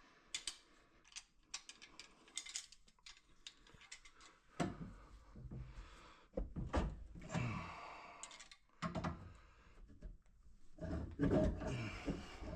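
Handling noise from tools and pipe fittings: a run of small clicks, knocks and thunks, with stretches of rustling and scraping about halfway through and near the end.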